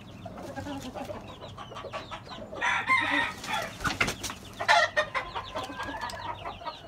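Gamecock roosters and hens clucking in a pen, with two louder calls about three and five seconds in, over a steady run of short, high chirps.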